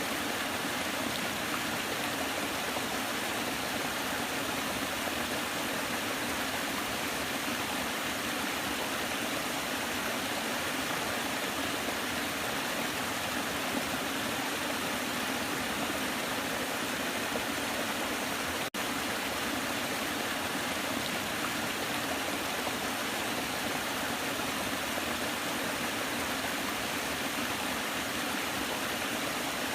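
Waterfall rushing, a steady full hiss of falling water that does not change, broken once by a split-second dropout about two-thirds of the way through.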